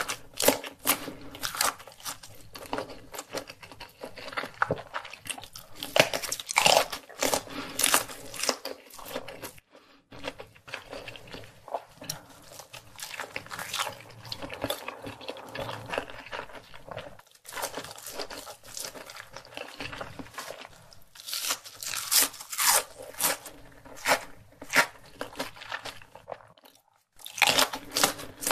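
Eating sounds of a man chewing grilled sausages and a nori-wrapped rice ball: a dense, irregular run of crisp, crunching bites and wet chewing, which briefly stops twice.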